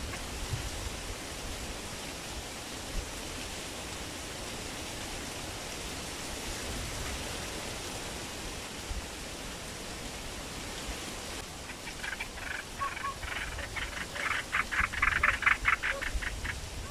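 A steady hiss of outdoor background noise. About twelve seconds in, an animal breaks into a loud, rapid chattering call of short harsh notes, about six a second, lasting some four seconds.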